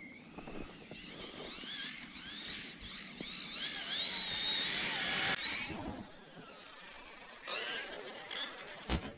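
ARRMA Siren 6S electric RC truck's brushless motor and drivetrain whining, the pitch rising and falling as the throttle is worked. It cuts off after about five and a half seconds and comes back briefly near the end.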